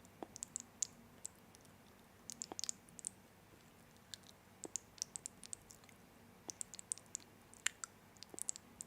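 Irregular sharp clicks and ticks, coming singly and in quick clusters of several.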